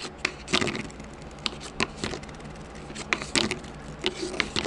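A swollen Samsung phone battery rocked and pressed on a tabletop, giving about ten irregular light clicks and taps. The bulging battery wobbles instead of lying flat.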